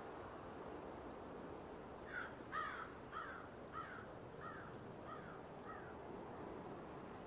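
A bird cawing seven times in a row, harsh calls about half a second apart that fade as the series goes on, over a faint steady outdoor hiss.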